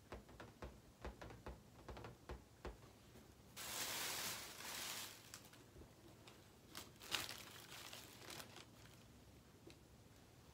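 Quiet handling of supplies on a table: a few light taps, then crinkling and rustling about three and a half seconds in lasting over a second, with a shorter crinkling bout near seven seconds.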